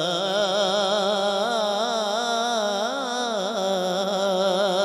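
A man singing a naat without words, drawing out one long melismatic note that wavers and turns in pitch.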